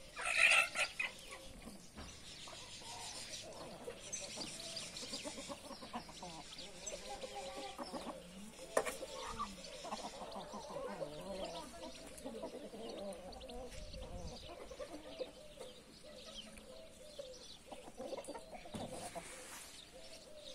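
A flock of domestic chickens, hens and roosters, clucking and calling steadily. A short, louder high-pitched burst comes about half a second in.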